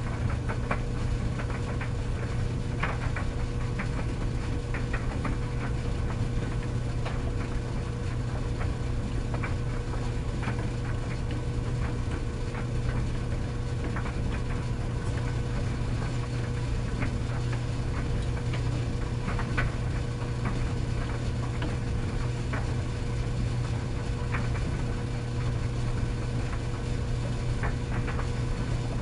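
Tumble dryer running steadily: a constant low hum of the motor and drum with a steady higher tone over it, and scattered light clicks and knocks every second or so as the load tumbles.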